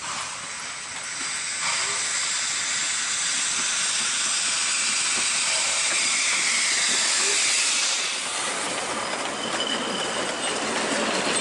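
Victorian Railways NA class 2-6-2T narrow-gauge steam locomotive passing close by, its steam hiss building from about a second and a half in and easing off about eight seconds in. The carriages then roll past with thin high wheel squeals and rail clatter.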